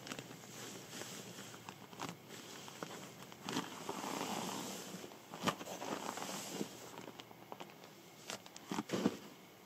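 Nylon bivvy bag and inflatable sleeping mat rustling and crinkling as they are handled and the mat is slid into the bag, with scattered small clicks and knocks.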